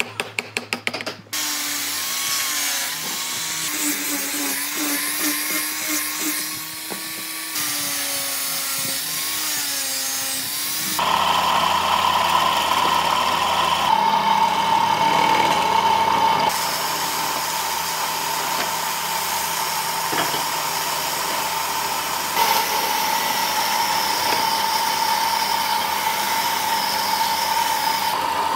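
Woodworking power tools heard in a run of short clips. First come rapid knocks for about a second. Then a motor runs with a pitch that wavers up and down. From about eleven seconds in, a higher-pitched tool runs steadily.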